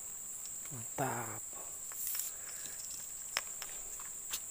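Steady high-pitched insect chorus, cicadas or crickets, throughout. About a second in there is a short vocal exclamation, and near the end two sharp clicks.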